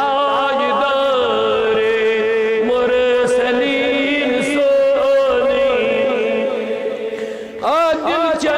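Men's voices chanting a naat in long drawn-out notes with a wavering pitch. Near the end the chanting dips briefly, then a quicker sliding vocal phrase comes in.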